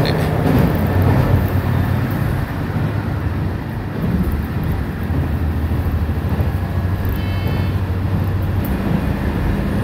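Diesel railcar running at speed, heard from inside the passenger cabin: a steady low engine hum over the rumble of wheels on rail. A brief high-pitched ring comes about seven seconds in.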